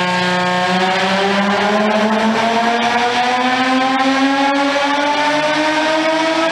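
Exhaust note of a Nissan 350Z's built, naturally aspirated 3.5-litre V6 with big cams, pulling steadily up through the revs under load, its pitch rising smoothly without a break.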